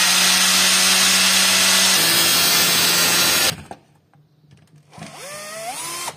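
Electric power tool motor running loud and steady at a high pitch, then cut off suddenly about three and a half seconds in. About a second later a motor briefly spins up with a rising whine and stops again.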